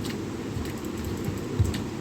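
Steady low background rumble, with a few soft low thumps, the loudest about one and a half seconds in, and a faint click near the end.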